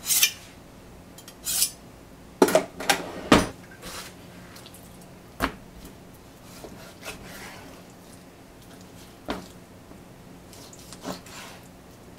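A kitchen knife scraped once across a small whetstone, then a quick cluster of clunks as the tools are handled. Then the freshly sharpened knife slices raw chicken thigh, its blade knocking on the cutting board three times, spaced a few seconds apart.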